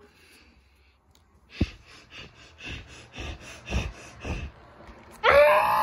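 A person blowing short, breathy puffs of air at the microphone, about two a second, as wind for the paper cut-outs. About five seconds in, a loud, drawn-out vocal cry starts.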